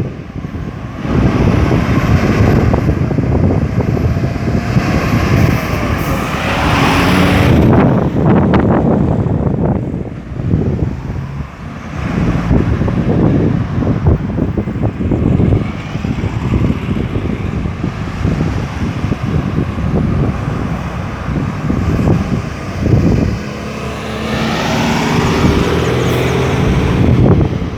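Road traffic circulating a busy roundabout: cars and heavier vehicles driving past one after another in a continuous rumble. Louder passes with a rising engine note come about a quarter of the way in and again near the end.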